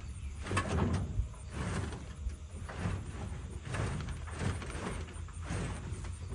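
A wooden-framed rabbit tractor with a tin roof and wire-mesh floor being dragged slowly across grass, scraping and rattling in a series of short irregular surges as it is pulled along.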